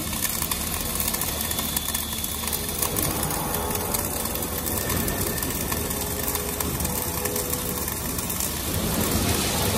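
Wire-feed arc welding on steel plate: the arc crackles and sizzles steadily, with a low hum underneath.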